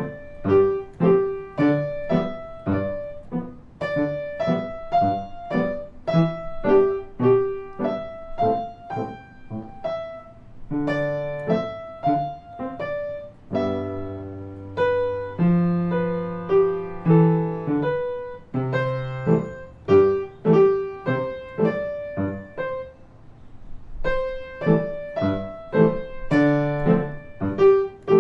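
Grand piano played four hands, a simple beginner-level duet: evenly paced notes and chords, about two a second. About halfway through the notes are held longer as sustained chords, and shortly after that the playing thins out briefly before the steady pattern returns.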